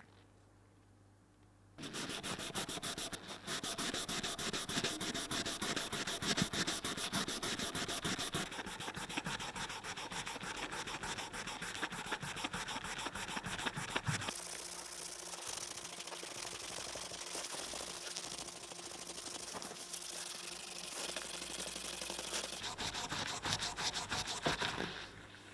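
Hand sanding of a Tibetan Mastiff canine tooth with an abrasive: fast back-and-forth rasping strokes that start about two seconds in. About halfway through, the strokes turn thinner and hissier.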